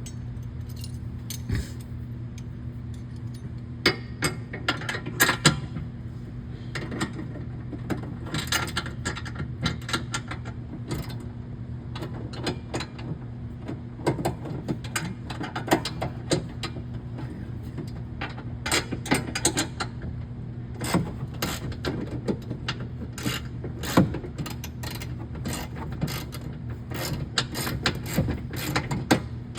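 Socket ratchet clicking in short runs, with scattered metal clinks, as the bolt holding the bed latch is worked loose. A steady low hum runs underneath.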